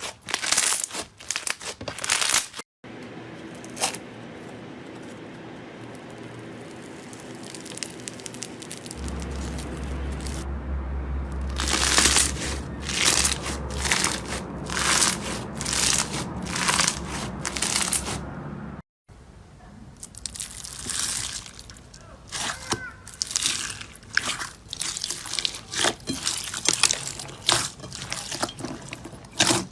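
Slime being squeezed and poked by hand, in three short clips: crackling, crunchy clicks first, then a run of squishes roughly once a second over a low steady hum, then a quick series of crackly pops and clicks.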